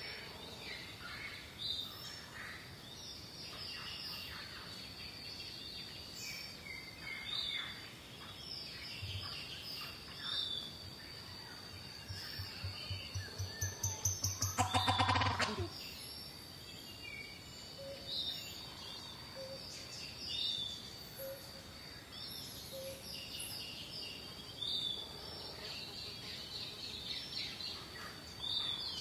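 Outdoor ambience of many birds chirping over a steady high whine. About halfway through, a fast run of low pulses speeds up and ends in one loud call.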